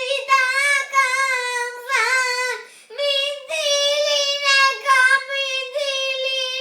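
A child singing alone without accompaniment in short phrases, the high voice held mostly on one wavering note, with brief breaths between phrases and a quick downward slide about two seconds in.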